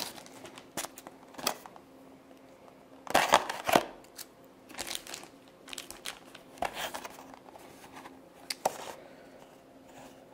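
A packaging bag being opened and handled, crinkling and rustling in short irregular bursts, loudest about three seconds in.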